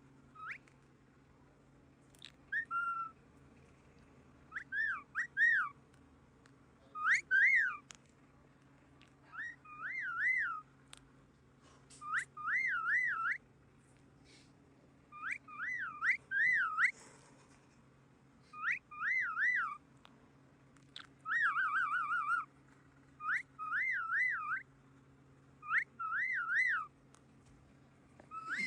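Pet parrot whistling the same short wavy phrase over and over, each phrase two or three pitch swoops up and down, repeated about a dozen times with short pauses, one of them a quicker warbling version.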